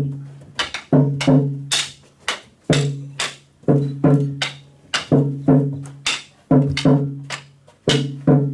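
A drum struck in a quick, uneven beat, often in pairs about twice a second, each stroke a low ringing tone that dies away, with sharper clacks in between, beating out a staged fight.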